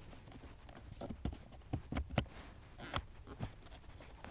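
Irregular short plastic clicks and knocks, about a dozen in a couple of seconds, as the retaining flaps on a 2012 VW Polo's pollen filter cover are slid shut by hand.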